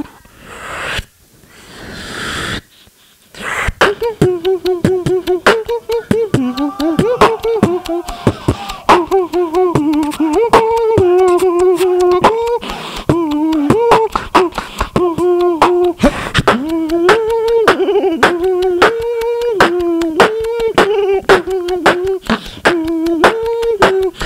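Beatboxing into a handheld microphone over a PA. After a few seconds of breathy, quieter sounds, a fast stream of sharp kick and snare clicks runs under a held vocal tone that steps between a few low pitches.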